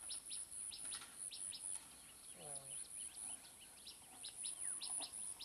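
Small birds chirping rapidly in short, quick notes over a high-pitched buzz that pulses on and off, with a short voice about halfway through.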